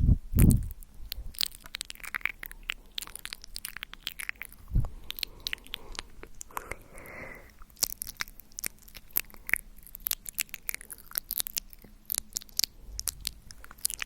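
Close-miked ASMR mouth sounds: a dense, irregular run of wet clicks and smacks from the tongue and lips, with a couple of heavier low thumps near the start and about five seconds in.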